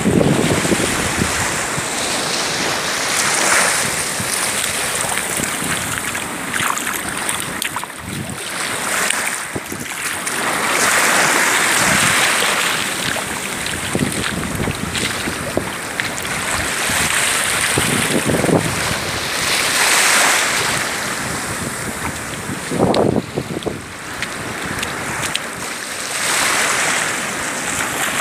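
Small waves washing onto a sandy beach, the wash swelling and falling every few seconds, with gusts of wind now and then buffeting the microphone.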